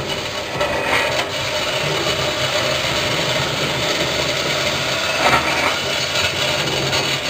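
Green coffee beans pouring from a stainless-steel hopper into a running coffee roaster: a steady rushing rattle over a low machine hum, with louder surges about a second in and again around five seconds.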